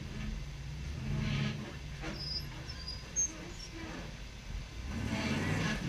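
Rock-crawler buggy's engine revving in short bursts under load as it climbs a near-vertical rock face, rising again near the end, with one sharp click a little after three seconds in.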